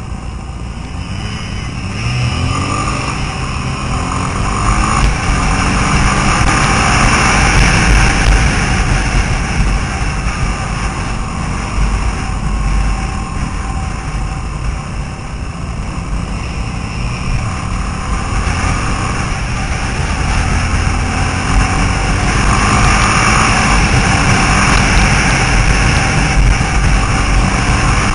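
A 50cc scooter engine running at riding speed, its pitch rising and falling with the throttle, under heavy wind rumble on the microphone.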